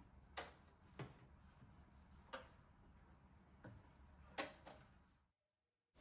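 Five faint, irregular clicks and taps as a hand wipes the espresso machine's metal steam wand with a cloth, the wand knocking lightly.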